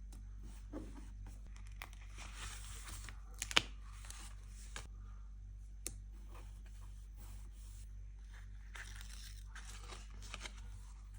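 Paper being torn by hand in two slow bouts, one about two seconds in and one near the end, with a sharp click a little after the first.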